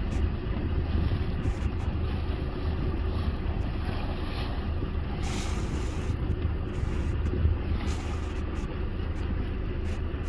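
Sportfishing boat's engine running with a steady low drone, with water rushing and splashing along the hull and wind on the microphone.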